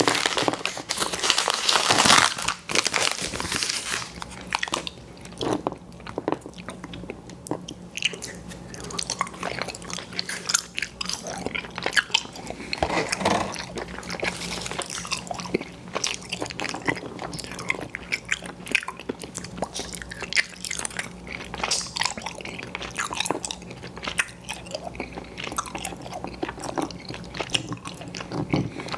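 Close-miked biting and chewing of candy in big bites: a loud crackly stretch over the first few seconds, then steady open-mouthed chewing with irregular clicks and smacks.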